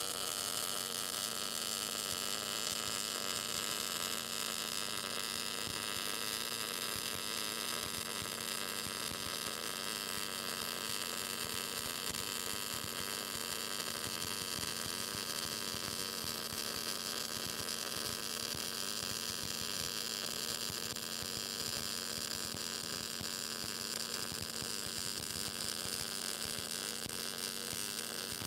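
Short-circuit MIG welding arc at the lowest inductance setting, a steady crispy crackling buzz. This is the hard, fast-freezing arc of low inductance, where the wire shorts into the puddle and blows apart many times a second.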